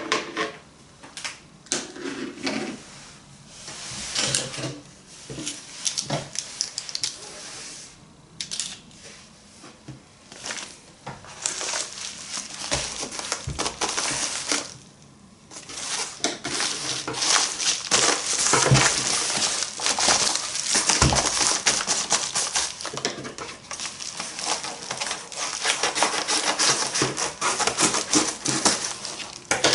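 Packaging being handled and opened by hand: scattered clicks and taps, then dense crinkling and rustling from about halfway through.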